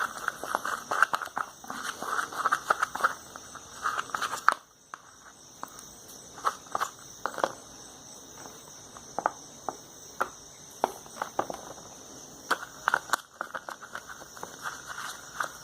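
Cornstarch-and-dish-detergent slime being squeezed and kneaded by hand, making irregular wet clicks and squelches, with a short lull about four and a half seconds in.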